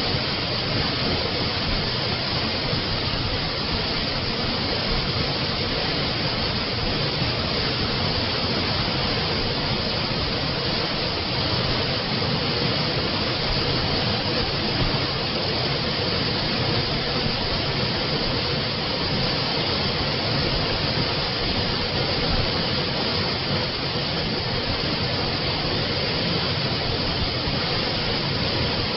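Water from a spring running steadily, an even, unbroken noise with no change throughout.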